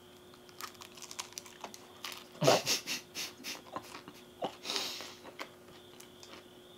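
A person chewing a mouthful of bacon-stuffed waffle: quiet wet mouth clicks and smacks, with a louder run of them about two and a half seconds in and a short breathy rush near five seconds.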